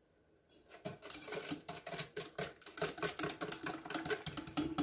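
Wire whisk beating a cream, sugar and vanilla mixture in a stainless steel saucepan. The tines tap and clink rapidly against the metal pan, starting about a second in.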